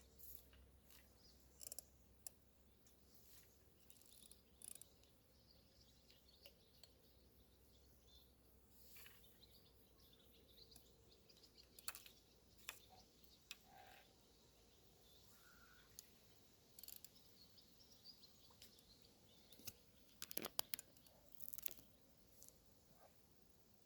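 Near silence with faint bird chirps and scattered small clicks and taps, the loudest cluster of clicks about three quarters of the way through.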